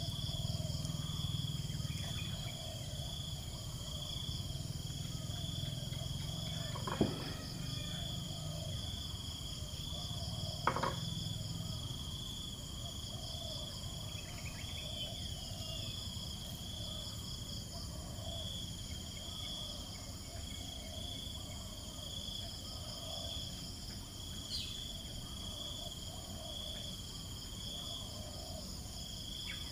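Insects chirping in a steady, high-pitched, rhythmically pulsing drone, with two short clicks about seven and eleven seconds in.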